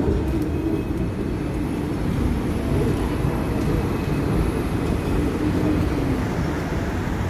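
Steady low rumble of a Hong Kong double-decker tram running on its rails.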